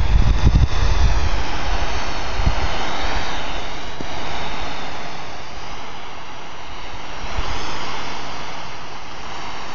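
Smoke firework hissing steadily as it gushes smoke, the hiss wavering slowly in pitch and easing a little before swelling again about seven seconds in. A few low rumbles sound in the first couple of seconds.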